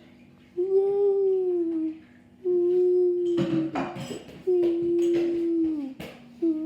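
Whale-like calls voiced by a person: long, low hummed moans, each held for a second or more and sliding down in pitch at its end, three in a row with a fourth starting near the end. A short rustle sounds between the second and third.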